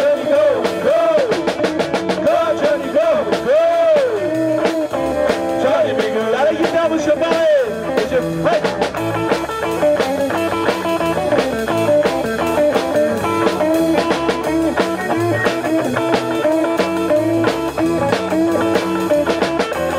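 Live rock band playing: electric guitar, electric bass and drum kit with a steady beat. A lead line of swooping, bending notes stands out over roughly the first eight seconds.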